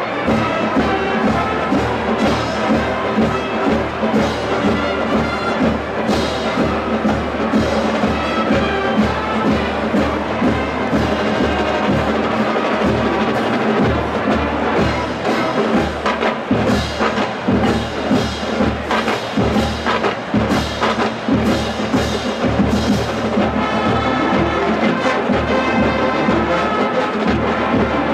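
Marching band of brass and drums playing a march, the brass carrying the tune over a steady drum beat.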